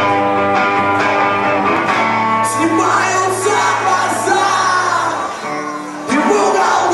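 Live rock band playing: held guitar chords, then a vocalist singing and shouting over the band from about two and a half seconds in. The music dips briefly and comes back loud near the end.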